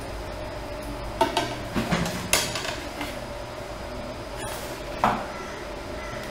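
A steel ruler clattering and tapping as it is set upright against a perspex sheet: a handful of light knocks in the first two and a half seconds, then one louder knock about five seconds in.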